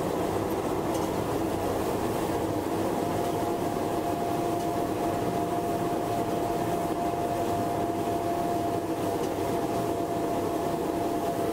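SK-5 Niva combine harvester running and cutting wheat, heard from inside the cab: a steady mechanical drone. A steady whine joins it about three seconds in.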